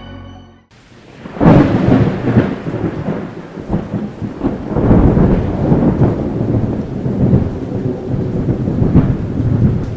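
Thunder rumbling over steady heavy rain, coming in about a second in after organ music cuts off.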